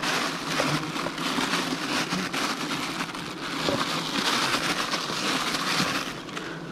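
Dense rustling, crackling noise with many small clicks, over a steady low buzz from a swarm of agitated giant honeybees around the nest.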